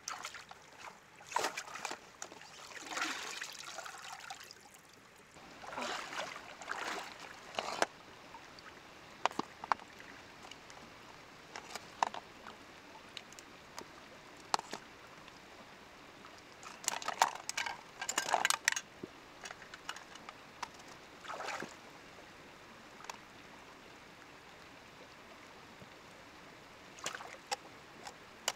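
Water splashing and trickling in short, irregular bursts, with scattered sharp clicks, then quieter stretches of steady faint hiss.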